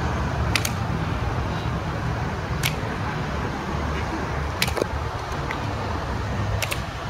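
Evzone guards' hobnailed tsarouchia clogs striking the marble pavement in the slow ceremonial march: sharp single clacks about every two seconds, twice doubled, over a steady low rumble of traffic.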